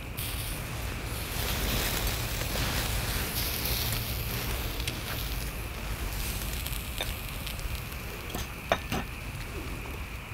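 Salt-grilled king prawns sizzling and crackling on a bed of hot salt in a cast-iron cauldron lid, with small crackles of shells being peeled by hand and one sharp crack late on, over a steady low rumble.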